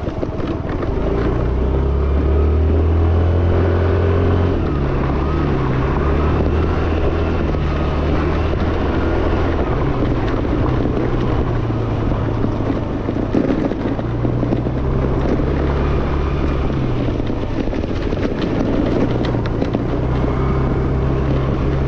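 Yamaha Fascino scooter's single-cylinder engine running on the move, its pitch stepping up and down every few seconds as the speed changes, with wind rushing over the microphone.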